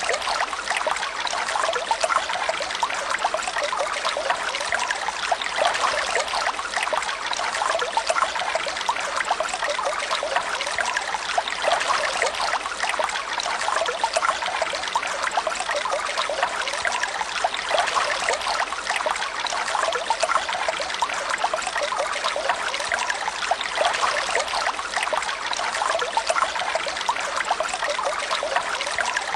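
Running water trickling steadily and unbroken, like a small stream.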